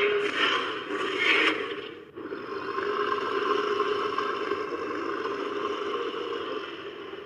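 Designed dinosaur vocalization for Zhuchengtyrannus, a tyrannosaurid: a harsh, rasping call that ends about a second and a half in, then after a short break a second, longer rasping call that slowly fades.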